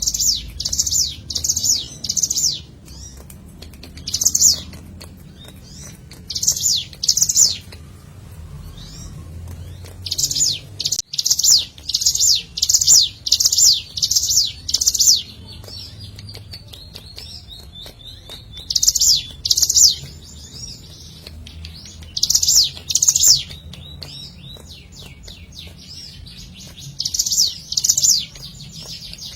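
Ciblek gunung, a prinia, calling in short strings of two to seven quick, high, chattering notes, repeated with brief pauses. Some strings are faster and longer, like the one a little before halfway.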